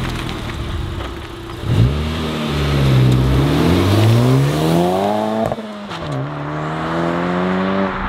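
Honda Civic Type R's turbocharged 2.0-litre four-cylinder, breathing through a freshly installed HKS Spec-L exhaust, accelerating hard past. Its pitch climbs steadily, drops sharply about two-thirds of the way through, then climbs again.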